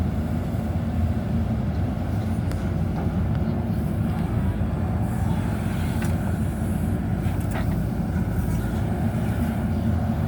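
JCB backhoe loader's diesel engine running steadily under load, a dense low rumble, with a few faint knocks.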